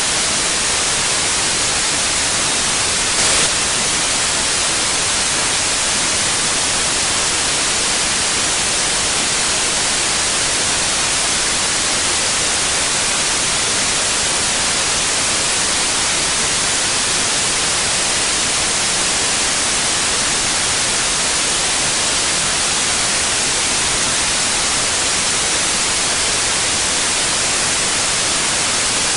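Steady, even white noise, a bright hiss weighted toward the high end, with a faint brief click about three seconds in.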